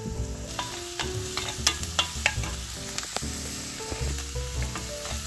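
Diced onion, garlic and ginger sautéing in a stainless steel pan: a steady sizzle with many sharp crackles, the high hiss setting in about half a second in, and a wooden spatula stirring and scraping through the pieces.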